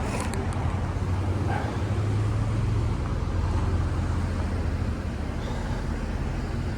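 A motor vehicle running with a steady low hum, over a wash of road or traffic noise.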